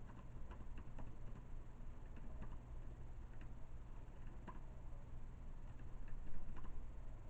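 Slow, irregular keyboard typing: light, unevenly spaced clicks, a few a second, over a steady low hum.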